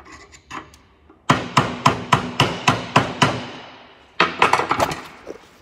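Hammer tapping on metal to drive a gear shaft over in a New Idea 5209 discbine cutter-bar gearbox. A quick run of about nine ringing strikes, three or four a second, comes about a second in, and after a short pause a second run of about five follows. The part moves easily with these few taps.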